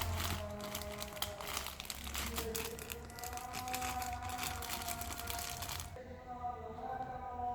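Plastic packaging crinkling and rustling as it is handled, stopping abruptly about six seconds in, with background music underneath.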